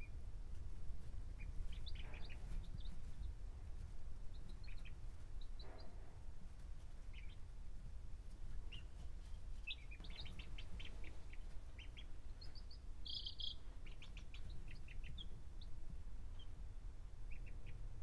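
Baby chicks and ducklings peeping softly and sporadically, short high chirps scattered throughout, with one louder run of peeps about two-thirds of the way through. A steady low rumble runs underneath.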